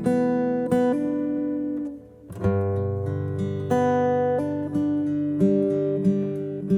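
Background music: acoustic guitar playing plucked notes and chords, with a brief pause about two seconds in.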